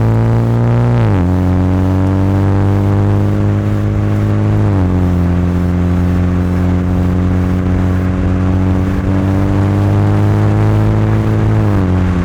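MINI John Cooper Works GP3 exhaust, turbocharged 2.0-litre four-cylinder, accelerating hard in sport mode. The note climbs steadily in each gear and drops sharply at each of three upshifts: about a second in, near five seconds, and just before the end.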